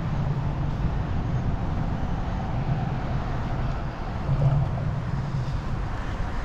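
Wind buffeting the microphone as a steady low rumble, with a gust swelling about four and a half seconds in.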